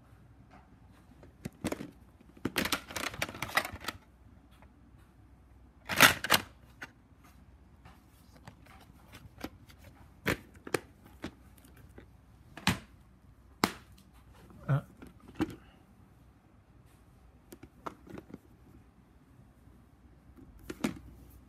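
Plastic VHS tape cases being handled and turned over, giving scattered clicks and knocks. A dense rattle comes about two and a half seconds in, and the loudest click about six seconds in.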